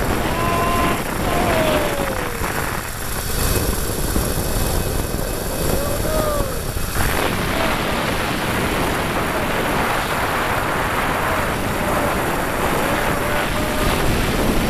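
Loud, steady wind rushing over the microphone of a rider speeding down a long zip line, with a few faint wavering tones rising and falling above it.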